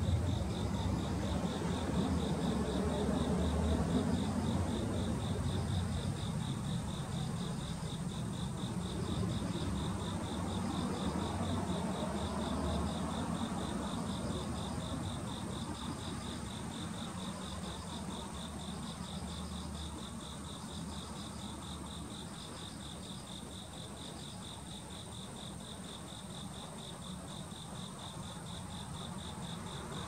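Insects trilling: a continuous high-pitched pulsing trill, with a fainter, higher chirp repeating about once a second that stops a few seconds before the end. Above them runs a thin, steady, very high-pitched whine, and under them a low rumble that eases off over the second half.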